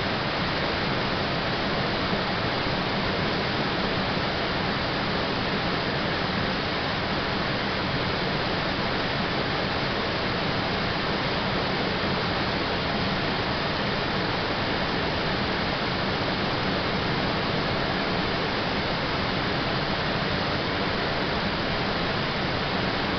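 Waterfall pouring, a steady rushing roar of falling water that stays even throughout.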